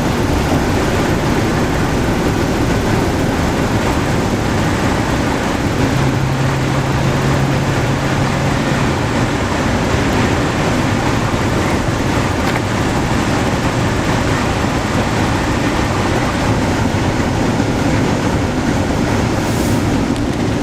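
Strong blizzard wind buffeting the microphone, a loud, steady rumbling roar. A low steady hum sounds for about three seconds partway through.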